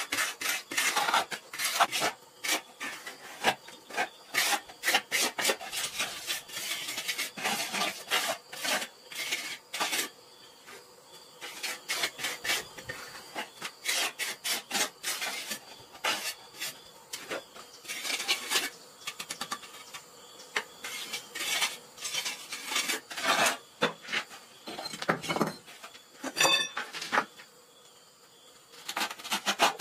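Steel trowel scraping and smoothing wet mortar over brickwork and a concrete counter edge, in quick irregular strokes with a few short pauses.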